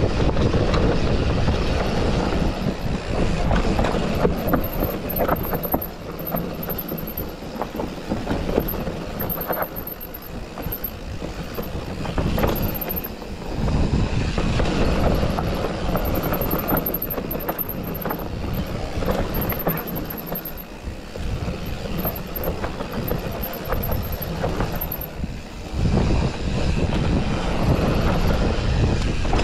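Mountain bike being ridden over a rough dirt forest trail, heard from a chest-mounted GoPro: a continuous rumble of tyres and rattling frame and parts, with many small knocks and wind on the microphone. It gets louder about three-quarters of the way through.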